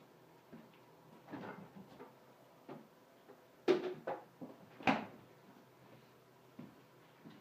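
A few scattered soft knocks and rustles in a quiet room, with two sharper knocks a little past the middle; no instrument is played.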